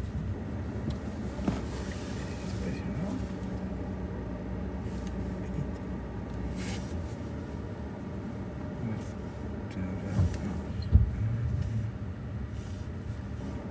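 A car being driven: steady engine and road noise as a low hum, with a couple of thumps near the end.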